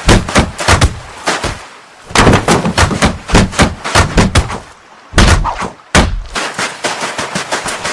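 Cartoon sound effects of a wooden crate crashing and tumbling among rocks: a rapid run of sharp bangs and knocks, several a second. It eases off twice briefly, and a fresh loud run starts about five seconds in.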